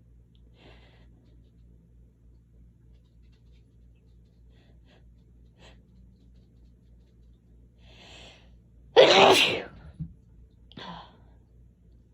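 A person sneezing once from allergies, loud and short near the end, with a drawn-in breath just before it and a short breath after.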